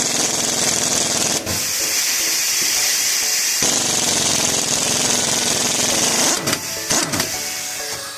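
A power tool running loudly, with a few brief breaks.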